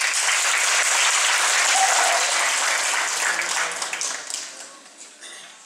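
Audience applauding, strong for about four seconds and then fading out.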